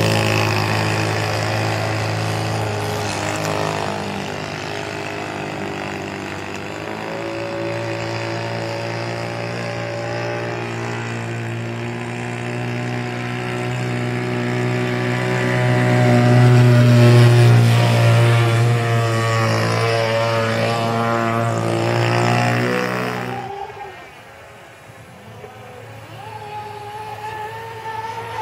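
Radio-controlled model speedboat's engine running at high speed with a steady note that swells as the boat passes closest. About twenty-three seconds in it cuts off sharply, leaving a fainter, higher-pitched motor.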